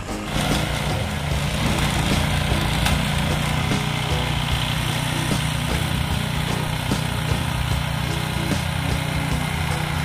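Ariens two-stage gas snow blower's engine running steadily under load as its auger and impeller throw snow out of the chute.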